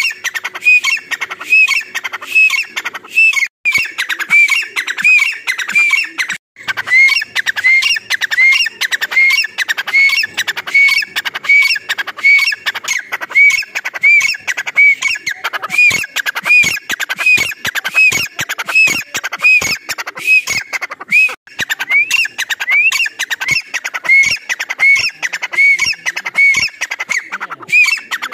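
Grey francolin (teetar) calling: a loud series of short, high, arching notes repeated about twice a second, with a few brief pauses.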